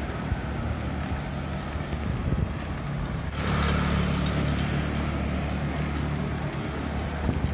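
Touring bicycle rolling over stone paving blocks: a steady rumble with scattered small rattles, and wind on the microphone. It grows louder and brighter about three seconds in.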